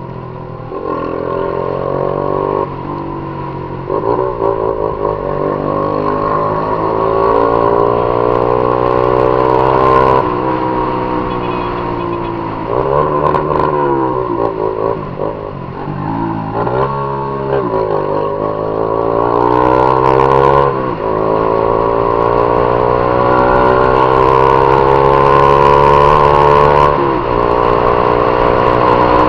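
Honda CG Titan 150's single-cylinder four-stroke engine pulling under way, its pitch climbing as the motorcycle accelerates and dropping sharply at each gear change, several times over.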